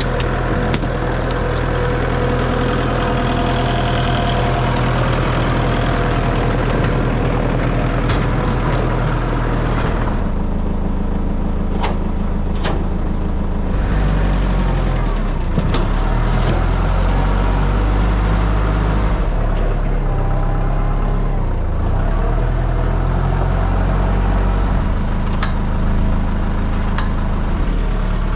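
Tractor engine running steadily while the tractor is driven on the road. The engine speed shifts a few times, about ten and fourteen seconds in and again around twenty seconds.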